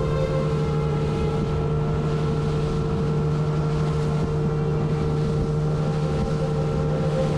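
A boat's motor running at a steady speed, a constant droning hum with no change in pitch. Wind buffets the microphone throughout.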